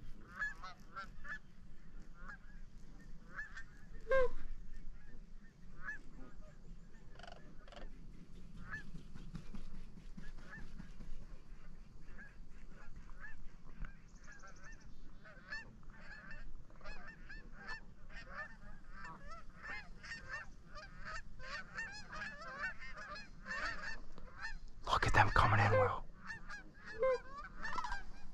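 A flock of geese honking, many short overlapping calls throughout. About three-quarters of the way through comes a single loud burst of noise lasting about a second.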